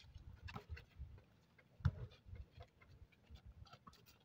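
Faint, irregular thuds and taps from a basketball game in play, one louder knock about two seconds in.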